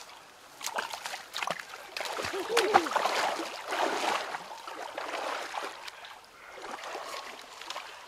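Shallow stream water splashing and churning as two people wade quickly through it, loudest in the middle and fading away toward the end.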